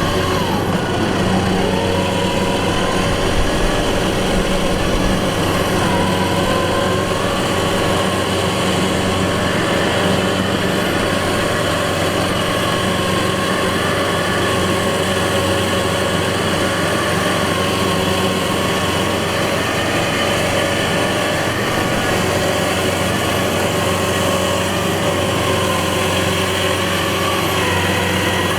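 Engine of a rice combine harvester running steadily under load, its pitch dipping briefly a few times.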